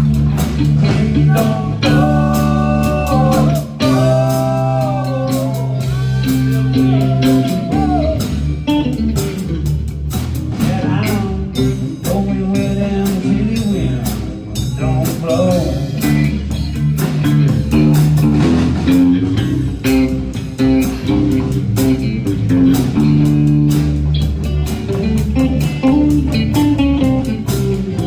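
Live band playing an instrumental break on bass guitar and electric guitar, with a lead line of bending notes in the first several seconds.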